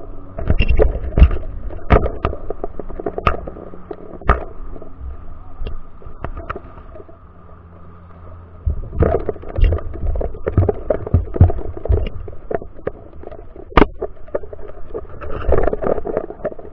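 Underwater sound heard through a camera's waterproof housing: irregular knocks and clicks over a low rumble and a faint steady hum, with a quieter spell in the middle.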